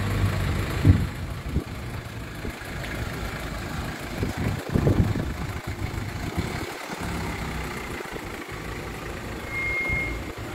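Low rumble of vehicle engines idling at the roadside, with a brief high beep near the end.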